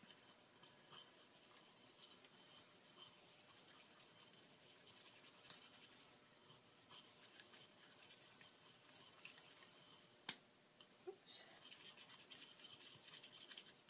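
Faint scratchy brushing of a paintbrush working acrylic paint on a palette, with a single sharp click about ten seconds in and a few light taps after it.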